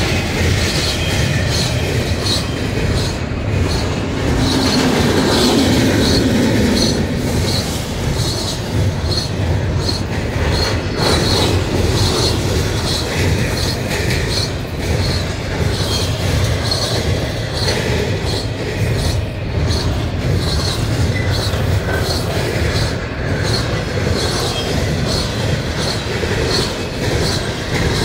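Double-stack container well cars of a freight train rolling past: a steady rumble of steel wheels on rail with a regular high ticking, one to two a second.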